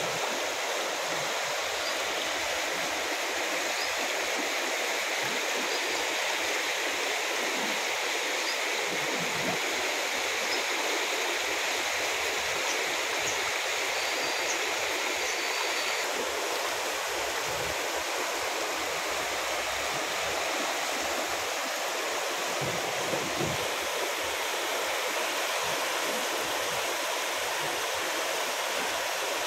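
Floodwater rushing down a street: a steady, churning noise of fast-flowing water, with a slight change in its sound about halfway through.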